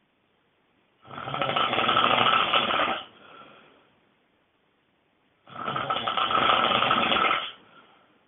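A person snoring loudly: two long snores about two seconds each, roughly four and a half seconds apart, each trailing off into a faint short breath.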